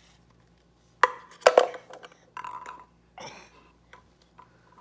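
A wooden ball-drop box being played with: a few sharp knocks and clatters of the ball in the wooden toy, starting about a second in, mixed with a baby's brief grunts.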